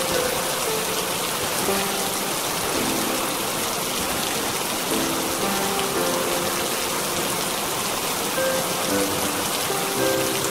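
Steady rain, an even hiss, with soft music of slow held notes played over it.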